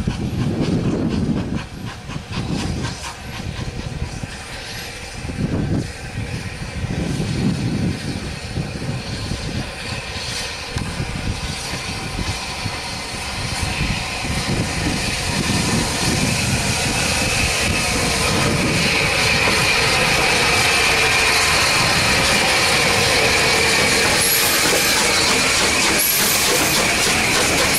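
SR Merchant Navy class steam locomotive No. 35006, a three-cylinder Pacific, approaches with a train, with uneven low beats at first. As it draws close past the microphone a steady hiss and rolling train noise build up and stay loud, with a couple of short high squeaks near the end.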